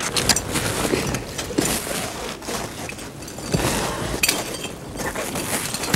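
Ice axes striking a frozen ice face, with ice chipping and shattering away: a series of sharp, irregular strikes.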